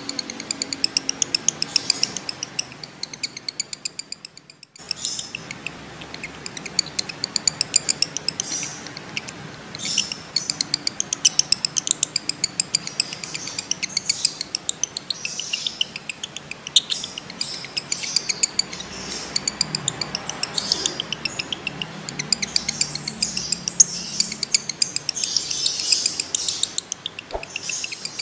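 Male lovebird in breeding condition giving the long chattering 'ngekek' call, a fast run of sharp high chirps. It breaks off briefly about four and a half seconds in, then runs on.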